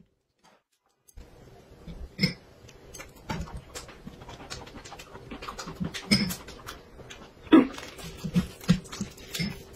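Short muffled hums and grunts from a man whose mouth is taped shut, over small clicks of chopsticks, tableware and chewing. It starts after about a second of silence, and one louder muffled cry comes near the end.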